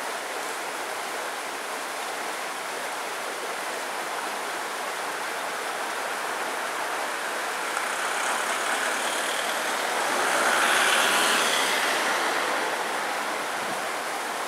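Steady street traffic noise, swelling louder for a couple of seconds about ten to twelve seconds in, with a faint high whine rising and falling.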